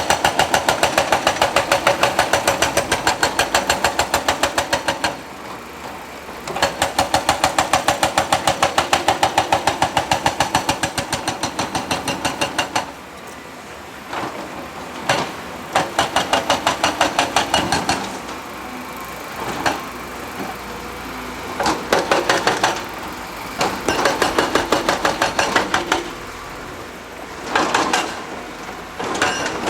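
Hydraulic rock hammer pounding rock with rapid, even blows, about ten a second, in two long runs of five to six seconds followed by several shorter bursts with pauses between them.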